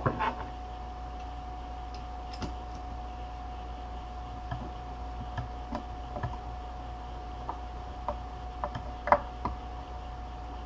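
Hand screwdriver turning a screw into a microwave oven transformer: scattered small clicks and ticks, with a sharp click right at the start and another about nine seconds in. A steady thin tone and a low hum run underneath.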